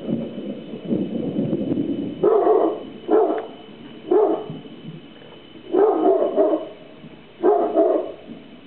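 A low rumble of thunder for the first two seconds. Then a dog barks about five times, spaced a second or so apart.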